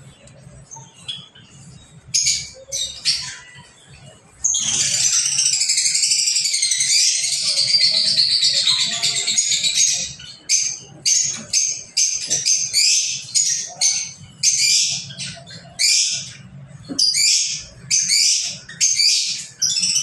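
A small group of young lovebirds calling in a cage: a few short chirps, then from about four seconds in some five seconds of continuous loud, shrill chatter, followed by a run of separate sharp calls.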